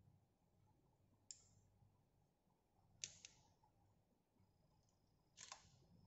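Nikon D5300 DSLR shutter firing, faint: a click about a second in, a quick double clack around three seconds, and another near the end.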